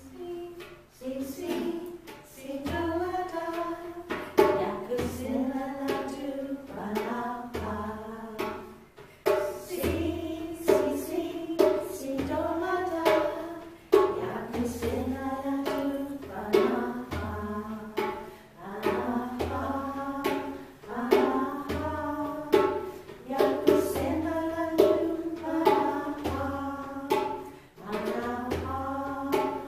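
Voices singing a song over a steady hand-drum beat, with a low drum stroke every second or so and sharper taps between.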